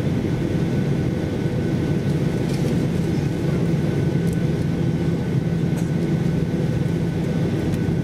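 Jet airliner's engines running at taxi power, heard from inside the passenger cabin as a steady low hum with a thin, steady high whine over it.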